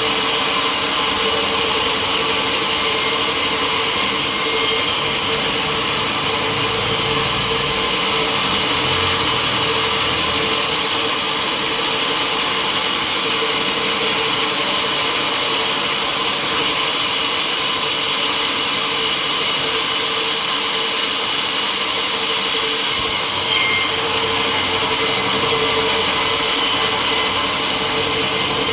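Sawmill running steadily, its saw cutting through wood, with a constant hum under a dense, even noise.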